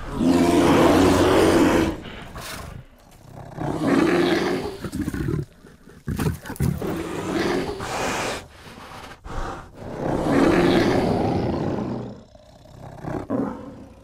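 Bear roaring in a series of about five growling roars, each one to two seconds long with short pauses between; the first is the loudest.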